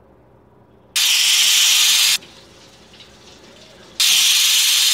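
Stovetop aluminium pressure cooker whistling: two loud blasts of venting steam hiss from the weighted valve, each a little over a second long and about three seconds apart, with a faint hiss between them. The blasts are the whistles that show the cooker is at full pressure and are counted to time the cooking; the second marks the end of cooking.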